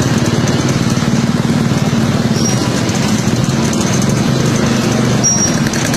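A small engine running steadily, with a fast even pulse.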